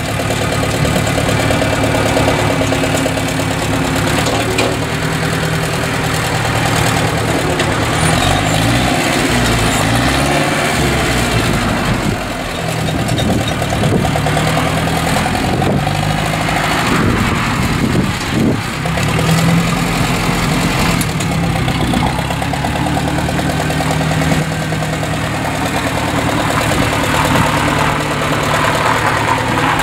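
Older farm tractor's engine running steadily as the tractor is driven slowly past. Its note wavers and shifts in pitch about a third of the way in and again just past the middle.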